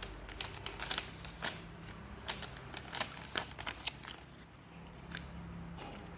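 Packaging being opened by hand: irregular sharp clicks and snips with light crinkling, busiest in the first few seconds and thinning out after.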